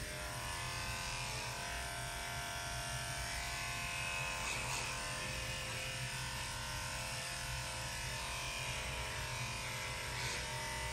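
Electric dog-grooming clipper running with a steady motor hum while it clips a Shih Tzu's coat.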